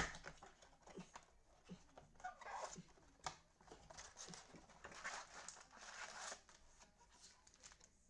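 Faint rustling, crinkling and tearing of trading-card packaging as a box of football card packs is opened. A sharp click comes at the very start, then scattered short scrapes and crinkles.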